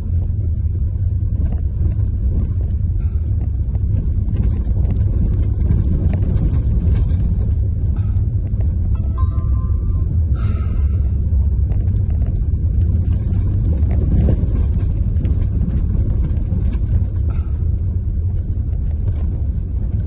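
Car driving slowly over an unpaved dirt road, heard from inside the cabin: a steady low rumble of engine and tyres, with scattered small knocks and ticks from the rough surface and a louder knock about ten seconds in.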